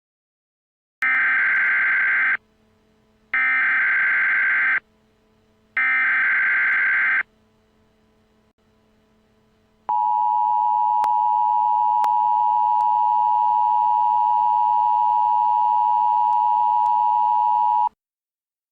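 Emergency Alert System broadcast tones: three short bursts of the SAME digital header data, about a second apart, then the steady two-tone EAS attention signal lasting about eight seconds and cutting off abruptly, marking the start of an emergency alert.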